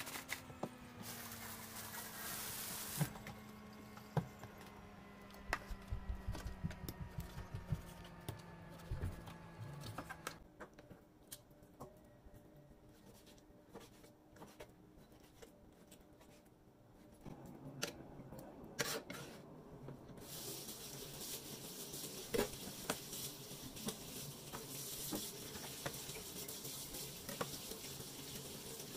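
Kitchen-counter handling sounds: scattered clicks and taps of a knife and meat on a plastic cutting board, then, from about two-thirds of the way in, a kitchen faucet running steadily as hands are rinsed under it.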